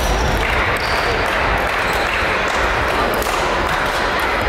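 Echoing hubbub of a busy badminton hall: a steady mix of many distant voices and play, with a few sharp ticks and short high squeaks.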